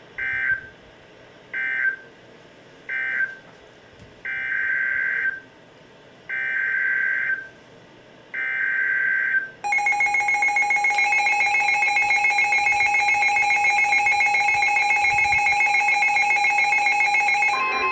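Emergency Alert System audio. It starts with three short data bursts, the end-of-message code closing the previous warning, then three longer data bursts, the SAME header of the next warning. About ten seconds in, the steady two-tone EAS attention signal begins and runs for about eight seconds, then gives way near the end to a single steady tone.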